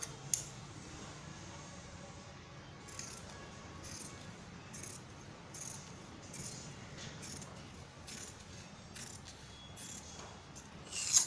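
Large tailoring scissors cutting through printed fabric laid on a stone floor: a run of short crisp snips, roughly one a second, each as the metal blades close. The loudest snip comes near the end.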